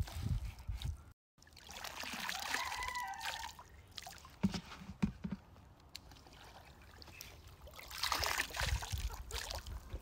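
Water trickling and sloshing as a metal strainer scoops wet azolla from a shallow pond and the dripping fern is tipped into a plastic bucket, in two spells with a quieter stretch between.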